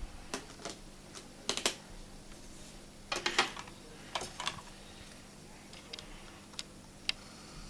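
Irregular light clicks and taps of small repair tools and plastic parts on an iPhone 6S screen assembly as the proximity sensor's plastic holder is removed. The clicks come in a few small clusters about one and a half, three and four seconds in, with single clicks between.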